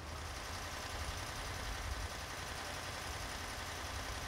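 Fire engine idling steadily under an even hiss.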